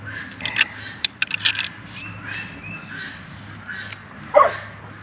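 A dog barks once near the end, after a quick run of light clicks and clinks in the first two seconds.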